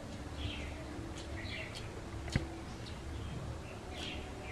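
Mouth sounds of people eating rice and curry by hand: chewing, lip smacks and clicks, one sharp click a little past halfway the loudest. Short chirps of birds sound in the background.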